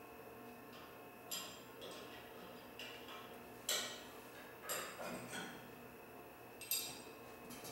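Several sharp metallic clinks and clicks at irregular spacing, each with a brief ring, from a wrench and steel fittings knocking together as the bore welder is unbolted and taken off the bearing mount.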